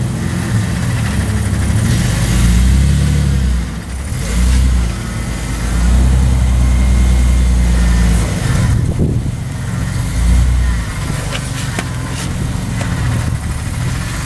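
Lifted Ford Ranger's engine working hard as the truck crawls over boulders, surging and easing off as the throttle is fed in and backed out. A few sharp clicks come near the end.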